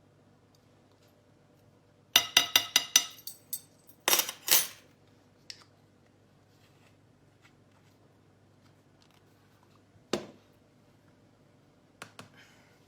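A spoon clinking against a bowl. About two seconds in comes a quick run of ringing taps, then a couple more clinks, with a few single light knocks later on.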